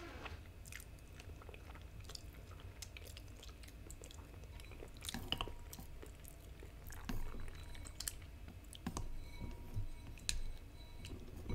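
Quiet chewing of noodles, with a few scattered soft clicks of chopsticks and a ceramic soup spoon against a ceramic bowl while stirring the soup.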